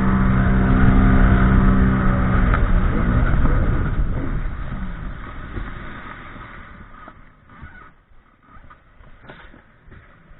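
Sea-Doo Spark personal watercraft's Rotax three-cylinder engine running hard at a steady pitch, then wavering and dropping in pitch and fading away after about two and a half seconds. A few sharp knocks come near the end.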